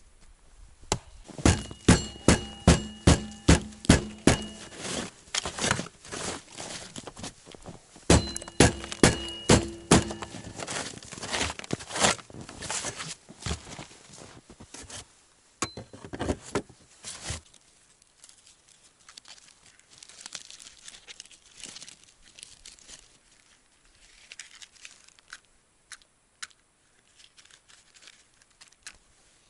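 Firewood being chopped: two runs of sharp blows on dry wood, about three a second, each run ringing with a short tone, then scattered knocks that stop partway through, leaving only faint crackling and rustling.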